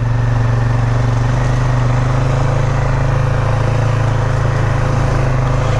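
2021 Polaris Sportsman 570 ATV's single-cylinder engine running at a steady, even note.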